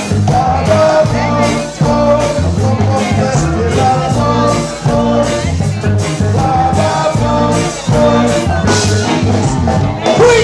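Live ska band playing with a steady beat and a repeating bass line, a singer's voice over the music.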